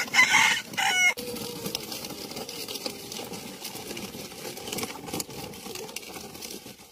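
A rooster crows once in the first second, in two loud pitched parts, followed by the steady rattle of a plastic toy truck's wheels rolling over gravel.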